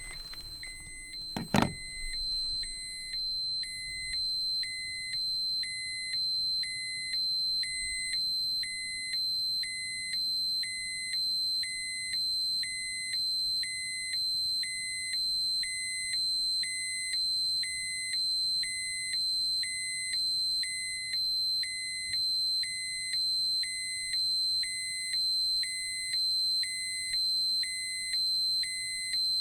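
Dosimeter alarm sounding: the warning that the measured radiation has passed its set limit. A click about a second and a half in, then a steady high-pitched tone with a second, lower beep pulsing on and off about once a second.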